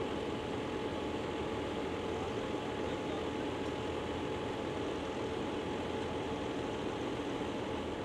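JCB Fastrac 4220 tractor's 220 hp diesel engine idling steadily while the tractor stands still, an even hum with a steady whine over it.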